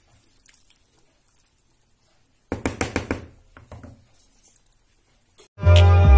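A quick run of sharp knocks, followed by a few fainter taps; near the end, loud music with a heavy beat suddenly cuts in.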